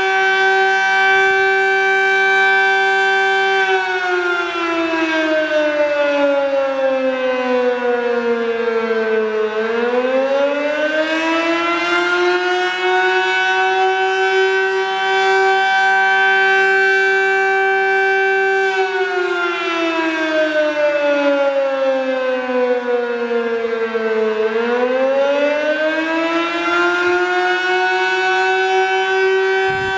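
Sterling Model M 8/8-port electromechanical fire siren sounding the attack signal in a test. The tone holds steady at full pitch, slides down over about six seconds, then climbs back up and holds again, twice.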